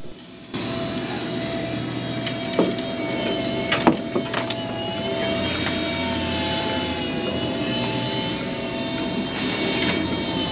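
Steady machinery drone of a large party boat's engines and generators, with a few sharp knocks a few seconds in.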